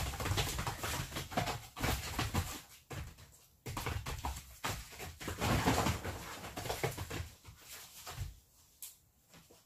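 Two Jindo dogs, a grown dog and a puppy, play-fighting: the puppy's play growling, which sounds almost like singing, mixed with a plastic tarp crinkling under their paws. It comes in irregular scuffles and dies down over the last second or so.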